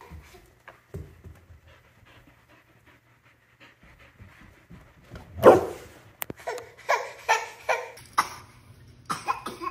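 Pet dog panting close by, with a loud sudden sound about halfway through, followed by a run of short breathy sounds, two or three a second.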